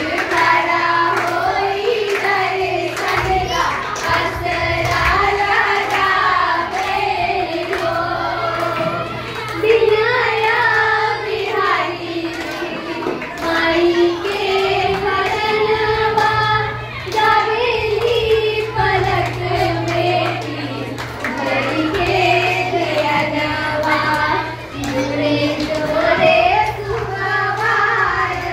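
Two girls singing a Chhath folk song (Chhath geet) together into a microphone, with a steady low hum underneath.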